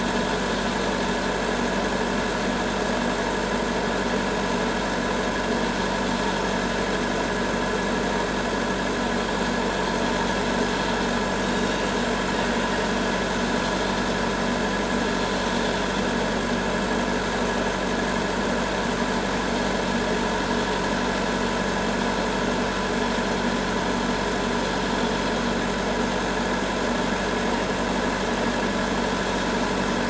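Large band sawmill running steadily, its blade cutting lengthwise through a river-recovered sinker cypress log: a constant machine drone with fixed tones over the hiss of the cut.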